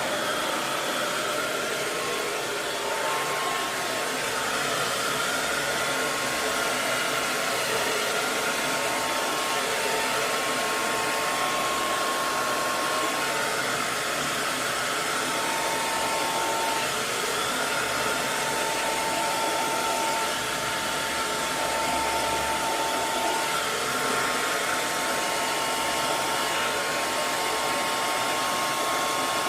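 Hair dryer running steadily: a constant rush of air with a faint motor whine, played as white noise.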